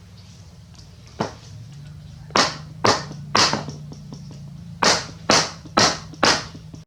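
Eight sharp knocks, one alone and then two quick runs of about two a second, over a faint steady low hum.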